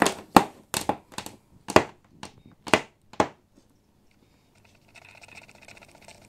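An unplugged power cord slapped against a hardwood floor: about ten sharp, irregular knocks over the first three seconds, then they stop. A faint steady whir comes in near the end.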